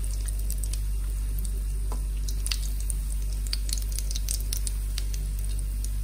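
Potato cheese balls deep-frying in oil in a kadai on a low flame: a gentle sizzle with scattered small crackles and pops over a steady low hum.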